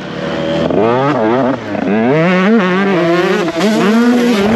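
125cc two-stroke motocross bike engine revving hard through the gears. The pitch climbs and drops several times as the throttle is opened and shut.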